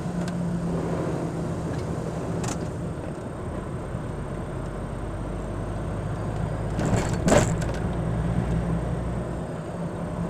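Vehicle engine running steadily at low speed, with tyre and road noise, as picked up by a dashcam. A brief loud clatter about seven seconds in.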